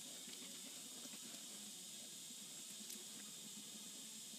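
Quiet steady hiss of background noise, with a few faint clicks of small greased metal chuck parts being handled and seated in a three-jaw chuck's back plate during reassembly.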